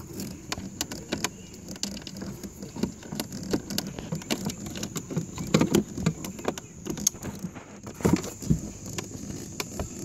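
Screwdriver and hand working a small Phillips screw out of a power window master switch mounted in a plastic car door panel: irregular light clicks and rattles of metal on hard plastic.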